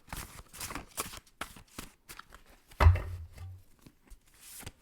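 Deck of oracle cards being shuffled and handled: a run of quick papery flicks and rustles, with one louder thump about three seconds in.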